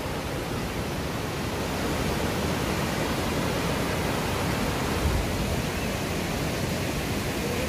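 Steady, even rushing of a waterfall.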